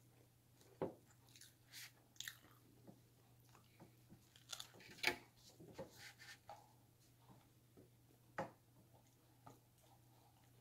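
A person chewing and biting food close to the microphone: scattered short mouth and crunch sounds, the loudest about five seconds in.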